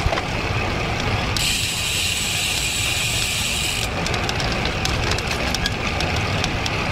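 Steady wind rush and road rumble on a bike-mounted action camera's microphone while a road bicycle rolls along. A high hiss starts about a second and a half in and cuts off abruptly a couple of seconds later, and light scattered ticks follow.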